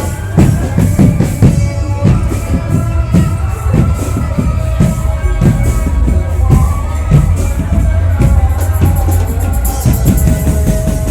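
Loud music with a heavy bass and a steady drum beat.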